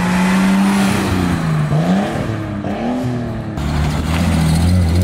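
Nissan R32 Skyline's RB straight-six running through a newly fitted aftermarket exhaust as the car drives by. The engine note holds steady, dips and climbs again twice as the car speeds up and eases off, then settles into a lower steady drone after about three and a half seconds.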